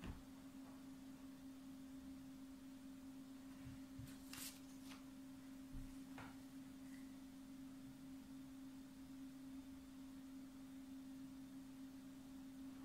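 Near silence: a faint, steady hum on one low tone, with a few faint clicks about four and six seconds in.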